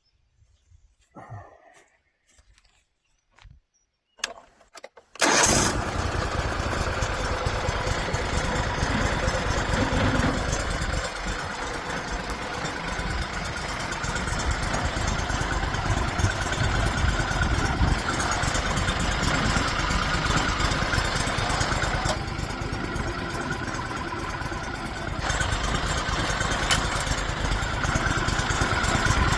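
A small gas engine on a sawmill starts suddenly about five seconds in, after a few faint clicks, and then runs steadily and loudly for the rest of the time. It drops a little for a few seconds before picking up again near the end.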